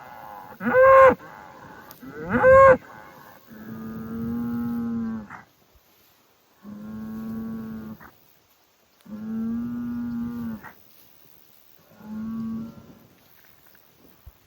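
Highland cattle bulls bellowing. Two short, loud calls rise and fall in pitch in the first few seconds, then come four long, low moos held at a steady pitch with pauses between them; the last moo is shorter and fainter.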